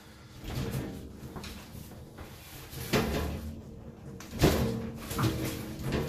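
Glass door panels of a snake enclosure cabinet being handled, scraping and knocking in their frame, with the sharpest knock about four and a half seconds in.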